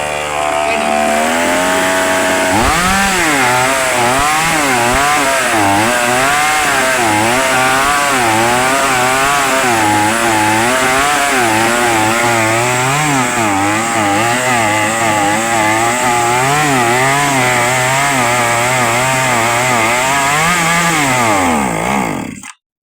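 Two-stroke chainsaw engine running, steady for the first couple of seconds, then revved up and down over and over as the throttle is worked. It cuts off abruptly near the end.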